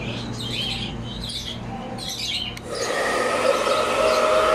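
High chirping calls, then a hand-held hair dryer switches on about two and a half seconds in. It runs with a steady whine, blow-drying the kittens' damp fur.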